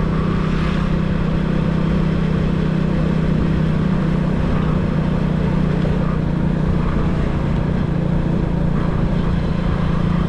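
Steady engine drone of a moving road vehicle, with a constant rush of road and wind noise.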